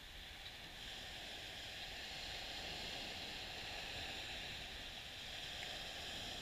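Small, gentle waves breaking and washing up a sandy beach: a steady hiss of surf that swells and eases.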